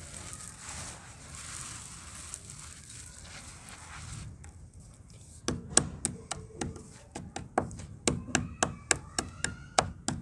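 Red brick powder sifted and rubbed between the hands, a soft gritty hiss. About halfway in, a hand-held stone starts pounding broken red brick on a concrete floor: sharp knocks, about three a second.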